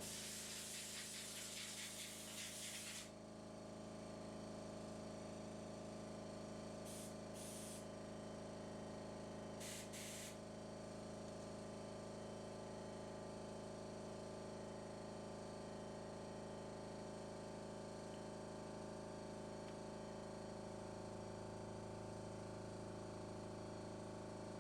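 Pressurized spray hissing in one long burst of about three seconds, then two short bursts around seven and ten seconds in, over a steady electrical hum.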